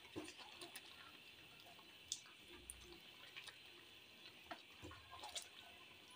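Faint bubbling and popping of a pot of saag boiling on the stove, with a few scattered small pops.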